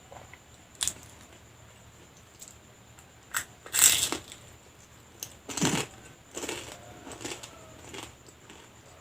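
Crunching bites into fried lumpia, the spring-roll wrappers hard and crisp, which the eater puts down to over-frying. About seven separate crunches come at uneven intervals, the loudest about four seconds in and just before six seconds.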